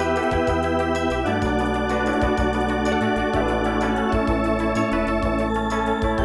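Wersi City Rack KF2 organ sound module being played: held organ chords over a moving bass line, with the chord changing about a second in and again near the middle.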